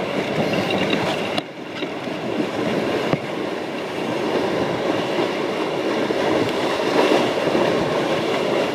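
Loud, steady rush of gale-force wind on the microphone mixed with water and spray rushing along the deck and hull of a Farr 30 racing yacht sailing fast in gusts of 30 to 40 knots, easing briefly about a second and a half in.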